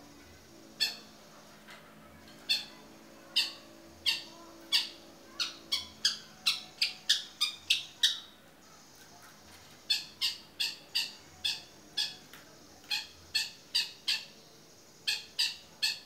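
Long-tailed shrike (cendet) giving a long series of short, sharp, harsh call notes. They come in quick runs of up to about three a second, with a pause of about two seconds partway through.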